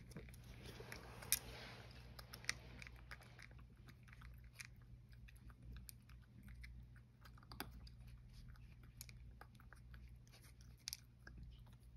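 Cat chewing and eating food from a small ceramic bowl: quiet, irregular little clicks and crunches, with a few sharper ticks now and then.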